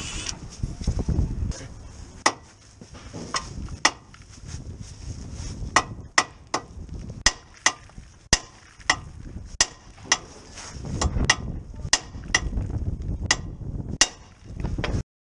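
Hammer blows on the steel front suspension of a Mini: a run of about twenty sharp metallic strikes, roughly two a second, each ringing briefly.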